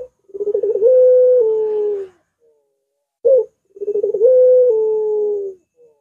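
Caged puter dove (ringneck collared dove) cooing: two long drawn-out coos, each opening with a quick stutter of notes, then held and stepping down in pitch, with a short single note just before each.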